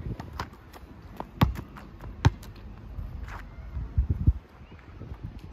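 A basketball bouncing on an outdoor hard court: two sharp bounces about a second apart, then a couple of duller thuds a little before the end.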